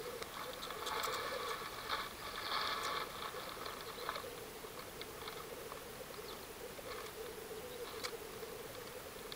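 Black grouse cocks displaying at a lek: a steady low bubbling coo, the rookooing song, with a louder, higher-pitched burst of calls over the first three seconds.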